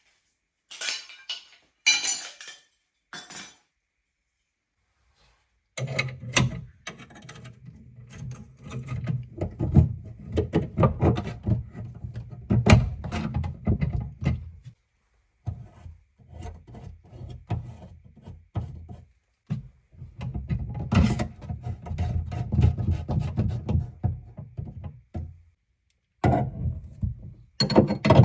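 Clicks, knocks and rattles of tools and copper pipe fittings being handled and tightened under a sink cupboard, with a low steady hum beneath them in two long stretches.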